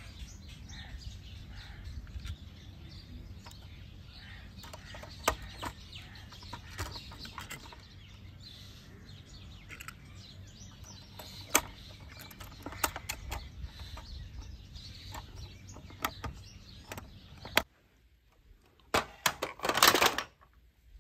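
Outdoor ambience: a steady low rumble with birds chirping, and small clicks of toy vehicles being handled on a wooden table. About 18 s in it cuts to quiet, then a loud clatter of plastic and die-cast toy trucks knocking together as one is pulled from a toy basket.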